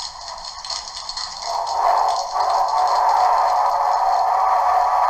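Dapol model water tower's sound unit playing a rushing-water effect as it fills the locomotive. The steady rush gets louder about a second and a half in and stops abruptly at the end.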